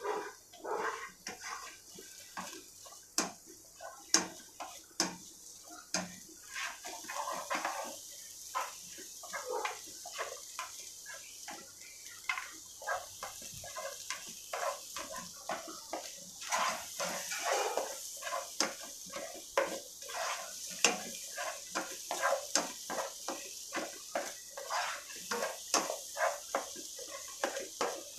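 Spatula stirring and scraping scrambled egg around a non-stick pot, with many short irregular knocks and scrapes against the pan over a faint sizzle of the egg cooking.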